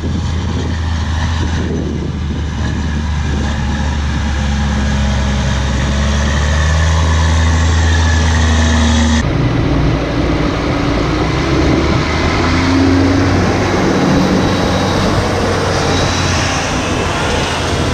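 Claas Xerion 4500 Trac tractor's diesel engine running steadily under load while pulling a Horsch Focus 6TD strip-till drill: a low, even drone. About nine seconds in the sound cuts to a closer, noisier run, with a tone rising slowly.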